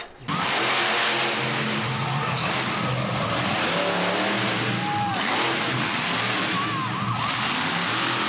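Monster truck engine running hard and loud in an indoor dirt arena, cutting in suddenly and then holding steady with the hall's echo around it.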